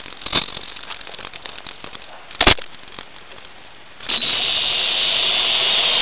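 Blade 400 RC helicopter's electric motor spinning up about four seconds in, a whine that climbs steadily in pitch as the rotor spools up, picked up by the onboard camera's microphone. Before that, faint crackling with one sharp click about two and a half seconds in.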